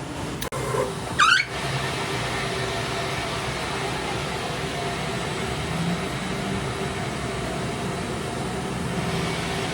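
Workshop machine running with a steady hum, after a brief high squeal that slides in pitch about a second in.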